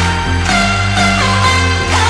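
Electronic background music with a steady deep bass and held synth notes that bend in pitch.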